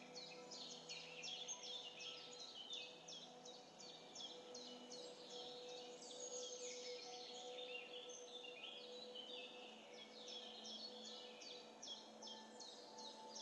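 Faint, dense bird chirping: many short, quick calls overlapping throughout, with a few faint steady tones underneath.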